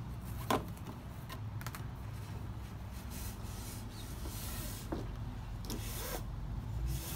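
Rope being pulled through the wraps of a square lashing on wooden poles: rope rubbing and swishing against rope and wood, with a few light knocks, the sharpest about half a second in, over a steady low rumble.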